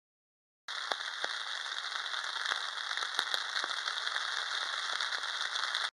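Rain falling steadily in a thunderstorm, a dense hiss with many sharp individual drop hits through it. It starts suddenly under a second in and cuts off abruptly at the end.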